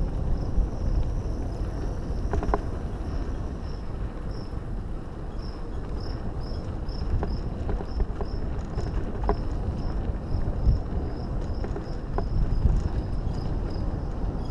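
Mountain bike rolling over a dirt singletrack, a steady low rumble with scattered clicks and rattles from the bike. A faint high insect chirp repeats about three times a second.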